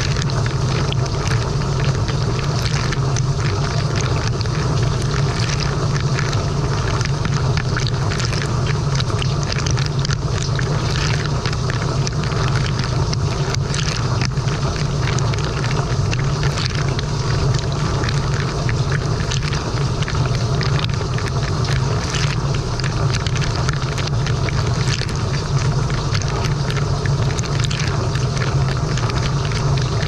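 Frigidaire Gallery dishwasher running its wash cycle, heard from inside the tub: water jets spraying and splashing over the racks and dishes over a steady low hum of the wash pump.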